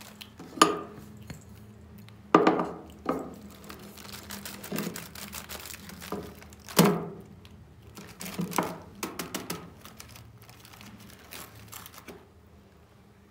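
A series of sharp knocks and clatters as a ceramic plate and other things are set down and handled on a table, the loudest about half a second in, at about two and a half seconds and at about seven seconds, over a steady low hum.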